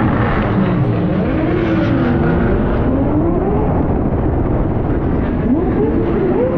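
Lexus LFA's V10 engine running under changing throttle, its pitch rising and falling several times, with a sharp climb in revs near the end.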